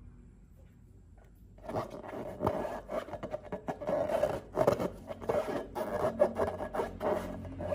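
Irregular rubbing and scraping with small crackling clicks, starting about a second and a half in after a near-quiet moment. This is typical of hands working slime or balloons.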